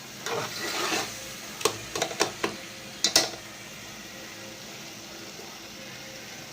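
A spoon stirring and scraping curry gravy in a cooking pan, with several sharp knocks of the spoon on the pan, the loudest a little after three seconds in. After that only a steady low hiss. The stirring keeps the simmering gravy from sticking to the bottom.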